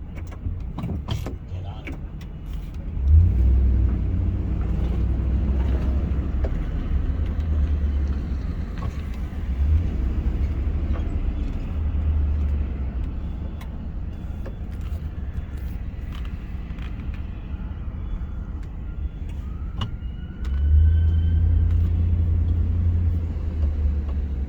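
Car driving: a steady low rumble of engine and road noise, which gets louder about three seconds in and again near the end.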